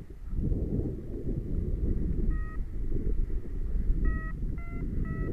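Wind rumbling on the microphone, with four short electronic beeps from a paraglider's variometer: one about two seconds in and three in quick succession near the end.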